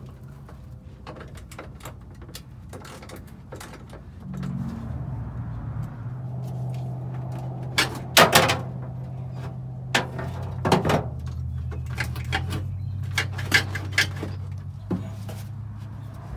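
Irregular metallic clicks, knocks and rattles of tools and parts being worked under a pickup truck's dashboard, the loudest a cluster of knocks just past the middle. A low steady hum comes in about four seconds in and shifts in pitch a few times.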